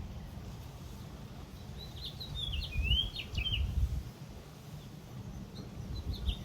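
A songbird sings one short phrase of high chirps and a slurred, dipping whistle about two seconds in, over a steady low rumble of breeze on the microphone.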